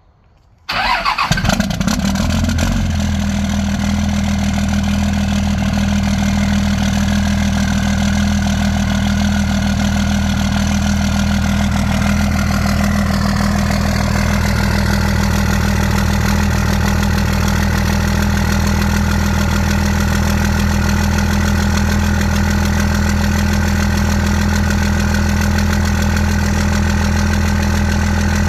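A vehicle engine starts about a second in, then idles steadily with a misfire. About thirteen seconds in, the idle settles slightly lower.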